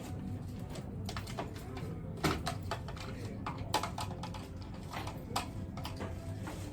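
Background of an indoor shop: a steady low hum and faint voices, with irregular light clicks and knocks.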